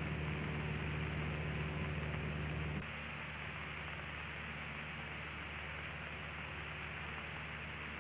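Cessna 152's four-cylinder Lycoming engine and propeller running steadily, heard inside the cabin with a hiss of air noise. The sound drops a little in loudness about three seconds in.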